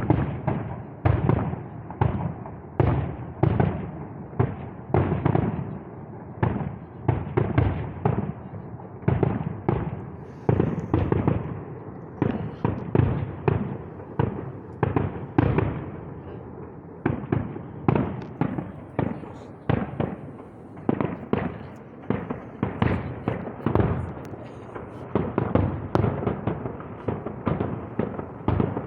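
Fireworks going off in a rapid, continuous series of sharp bangs, about two a second.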